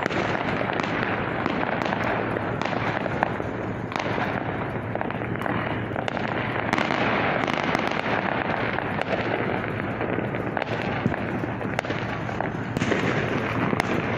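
Aerial fireworks going off in a dense, continuous barrage: overlapping crackling with frequent sharper bangs throughout.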